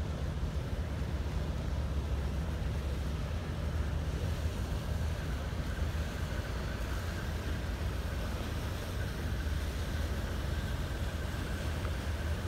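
Low, steady drone of a boat's inboard engine running at slow harbour speed, with light water and wind noise; a faint high whine joins about halfway through.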